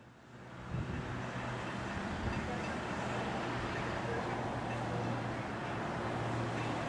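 A train running: a steady rumble and hiss with a constant low hum, coming up about a second in and then holding level.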